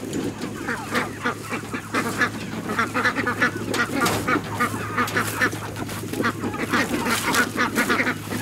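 A flock of white broiler chickens calling in quick, repeated squawks and clucks.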